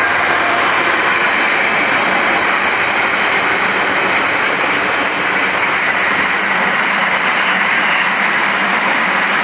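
Container freight train's loaded flat wagons rolling past close by: a steady, unbroken rumble and rush of steel wheels on rail.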